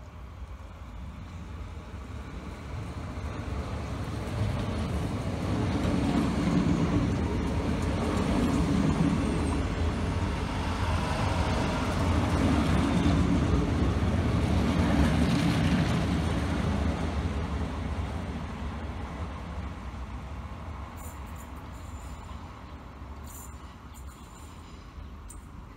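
Renfe class 446 electric multiple unit passing at close range: the rumble of its wheels on the rails swells as it approaches, holds for about ten seconds, then fades as it pulls away.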